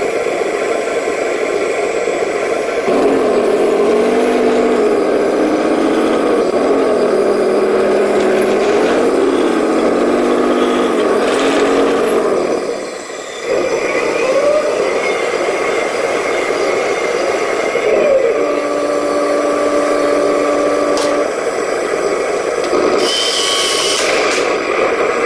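Heng Long Panther G RC tank's sound unit playing engine noise that rises and falls in pitch, with the electric motor whirring as the turret traverses. A short hiss comes near the end.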